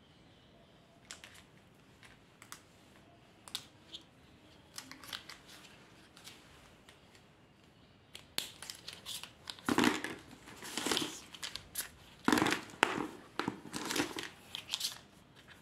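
A bundle of plastic felt-tip marker pens being handled and gathered up over a paper sheet: light scattered clicks at first, then about eight seconds in a denser run of plastic clattering and rustling, loudest around ten and twelve seconds in.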